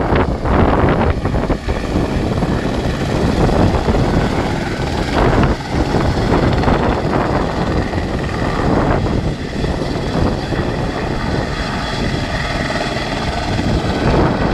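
Helicopter turbine and rotor running loudly and steadily while a helicopter hovers low over the apron, with small surges in level.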